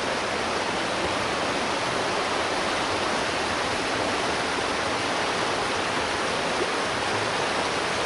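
Rushing water of a forest stream near a waterfall: a steady, even rush with no change in level.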